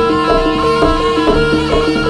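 Live jaranan gamelan music: struck metallophone notes ringing in a quick running pattern over kendang hand-drumming.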